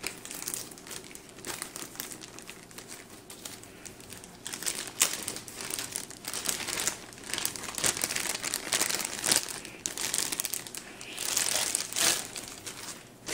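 Clear plastic packaging bag crinkling and rustling as it is handled and an instruction leaflet is slid out of it, irregularly, with louder crinkles about five seconds in and a longer, louder stretch near the end.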